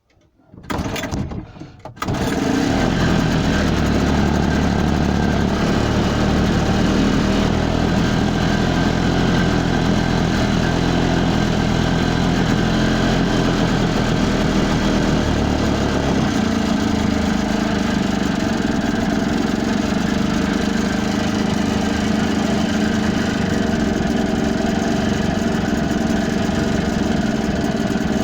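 Boat engine cranking briefly and catching about two seconds in, then running steadily. Its note changes about halfway through.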